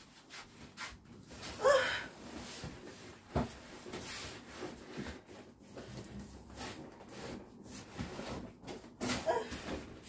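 Large cardboard box being handled and set down on a kitchen worktop: cardboard rubbing and scraping against the counter, with scattered knocks. A short pitched sound about two seconds in is the loudest moment.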